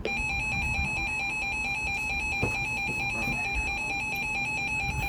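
Emergency Alert System attention signal: a steady, shrill electronic alarm tone that starts abruptly and holds without a break, announcing an emergency alert broadcast.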